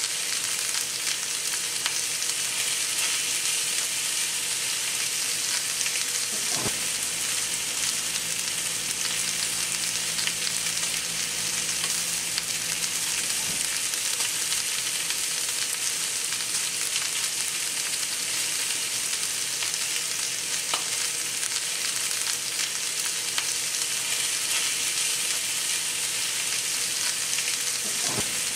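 Two New York strip steaks sizzling steadily as they sear in a hot cast-iron skillet, with a few light clicks as tongs turn them in the pan.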